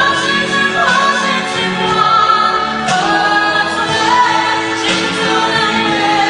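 A man singing into a handheld microphone, with long held notes that waver in pitch, over an instrumental backing of sustained chords.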